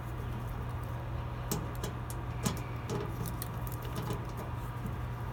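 Phillips screwdriver backing out short screws from a rain-barrel hookup cover: scattered light clicks and scrapes, the sharpest about a second and a half in and again a second later, over a steady low hum.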